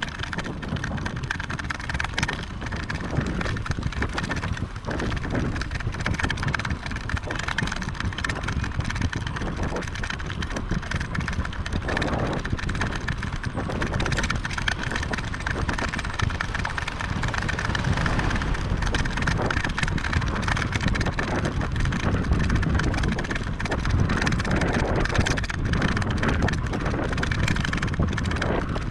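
Steady rumble of wind on the microphone with tyre and road noise from a moving bicycle.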